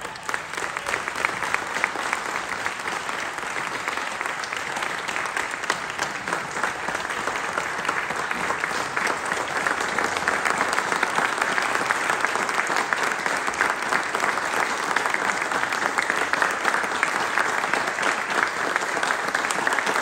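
Audience applauding steadily, building slightly over the first several seconds.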